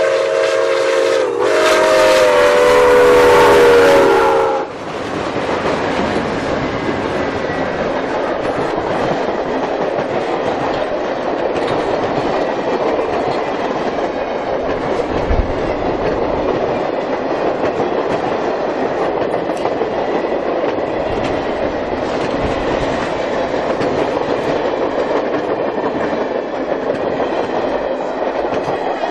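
Milwaukee Road 261, a 4-8-4 steam locomotive, sounds its steam whistle as several notes at once, with one short break about a second in, before it cuts off after about five seconds. Then a long train of passenger cars rolls past with a steady rumble of wheels on rail and clickety-clack over the rail joints.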